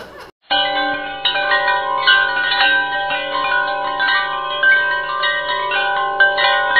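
Tinkling chimes: many overlapping bell-like ringing notes struck in quick, irregular succession over a low steady hum, starting about half a second in after a brief gap.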